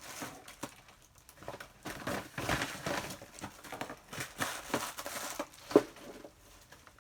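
Takeout food packaging being handled: irregular crinkling and rustling with scattered light clicks, the sharpest click a little before the end.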